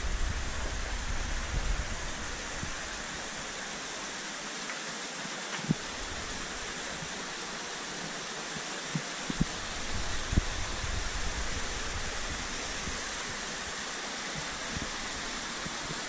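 A small waterfall cascading over rocks, a steady rushing hiss of water. A few faint knocks come in the middle.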